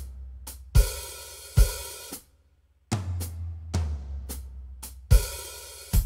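Yamaha PSR-S975 arranger keyboard's accompaniment style playing: a drum kit pattern of kick, snare, hi-hat and crash cymbals over low bass notes. It stops briefly a little after two seconds in, then starts again.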